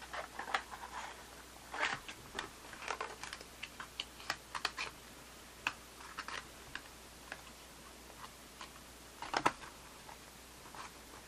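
Irregular light clicks and taps from handling a cardboard ammunition box and its plastic tray of .380 cartridges, with a quick cluster of sharper clicks near the end.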